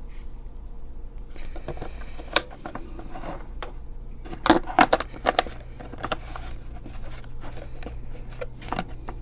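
Handling noise from a small battery-powered message board: scattered light clicks and knocks, with a cluster of sharper clicks about halfway through.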